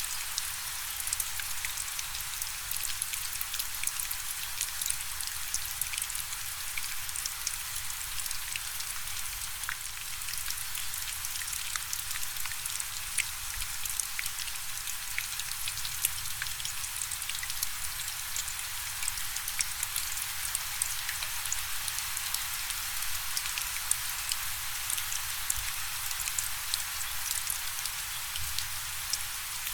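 Steady rain falling, an even hiss scattered with the crisp ticks of individual drops hitting a surface.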